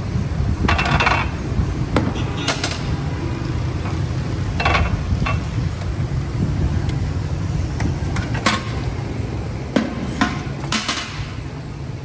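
Stainless-steel buckets and pots clanking and knocking several times, a couple of strikes briefly ringing, over a steady low rumble.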